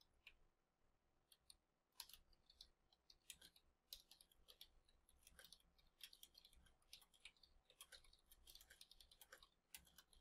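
Faint computer keyboard typing: a string of quick, irregular key clicks as a message is typed.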